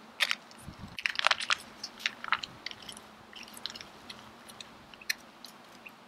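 Foil pouch crinkling and crackling as it is squeezed and wrung out by hand to push fondue cheese into a slow cooker pot. It is an irregular run of crackles, busiest in the first half and thinning out toward the end.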